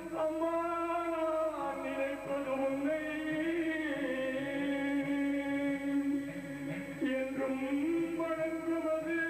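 Tamil devotional chanting in long, slowly gliding held notes, with a steady lower tone sounding beneath.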